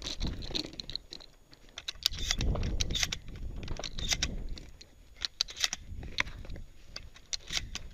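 Shotgun being picked up and handled: a string of irregular sharp metallic clicks and rattles, with scraping and shuffling between them.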